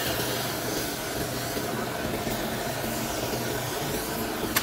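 Gas welding torch flame hissing steadily as it heats a metal pipe, over a faint low hum.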